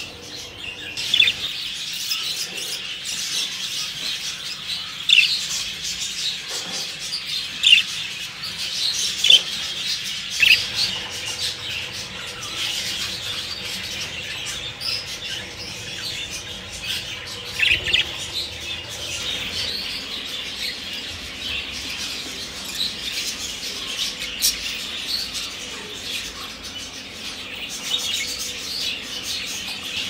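Budgerigars chattering and warbling continuously, with sharp, louder chirps breaking through every few seconds.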